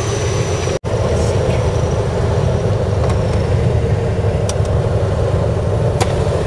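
Piper light aircraft's piston engine and propeller running steadily, heard inside the cockpit. The sound cuts out for a split second just under a second in, then resumes unchanged.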